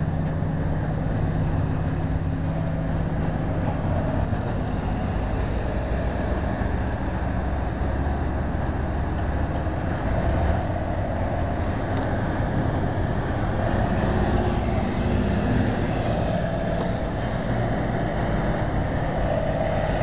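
Large wood chipper running steadily, a loud continuous mechanical drone.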